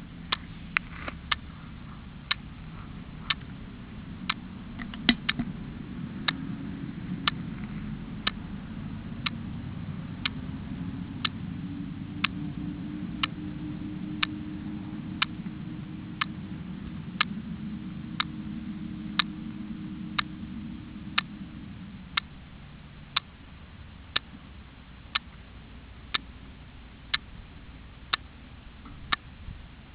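Sharp, evenly spaced ticking, about one tick a second, over a low hum that fades out about 22 seconds in.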